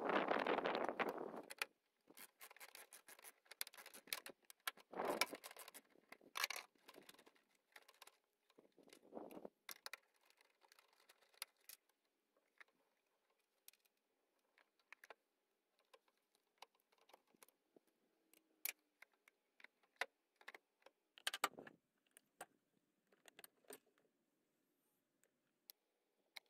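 Scattered clicks and clinks of hand tools on engine-bay parts: a socket ratchet on bolts and a screwdriver working a hose clamp on the plastic air intake. A few louder bursts of rustling and clatter break in, the loudest in the first second or two.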